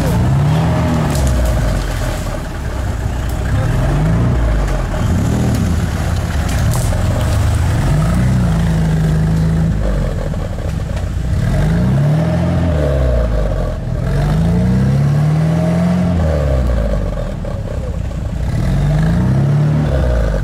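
Off-road buggy's engine revving up and falling back again and again under load as it crawls up a muddy gully, the revs swelling and dropping every second or two.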